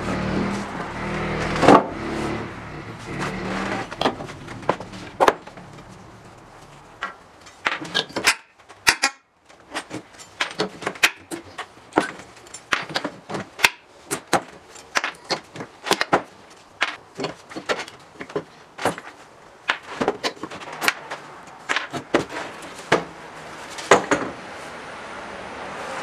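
Steel pry bar pulling old nails out of a reclaimed wooden board: an irregular string of sharp clicks and knocks of metal on nails and wood, at times several a second.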